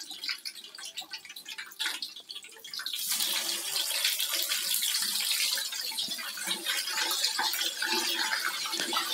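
Hot cooking oil in a wok crackling faintly, then about three seconds in a loud, steady sizzle with fine crackling as pieces of chicken are dropped into the oil to deep-fry.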